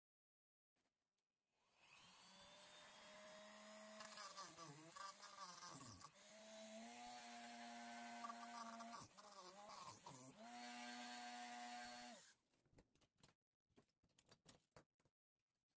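Handheld rotary tool with a cut-off disc running with a steady high whine. Its pitch sags briefly several times as the disc bites into the fibreboard hull wall. It switches off near the end, followed by a few light clicks.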